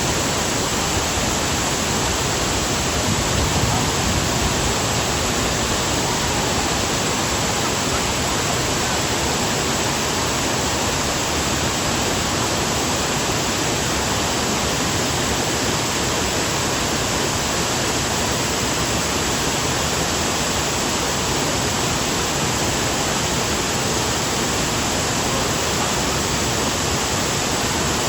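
Steady rush of falling water from a waterfall close by.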